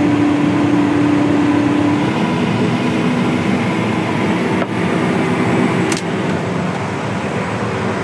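Steady drone of a tractor working a grain cart in the field, heard from inside the cab, with a humming tone that drops away about two seconds in.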